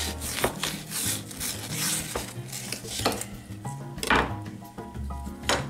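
A knife scraping and knocking on a bamboo cutting board as raw fish is trimmed, with several sharp taps, loudest about four seconds in, over background music.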